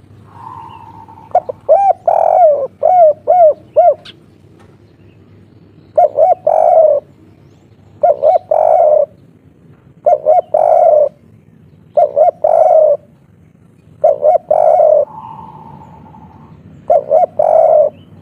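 Spotted dove cooing: a quick run of about six short coos, then its three-note 'kuk 3' coo, two short notes and a longer one, repeated about every two seconds, six times.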